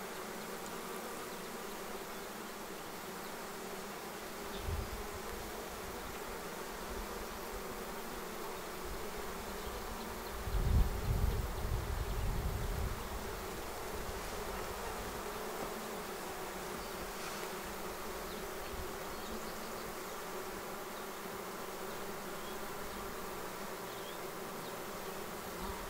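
A swarm of honey bees humming steadily while clustered on the front of a nucleus hive. A brief low rumble comes a few seconds in, and a louder one about ten seconds in.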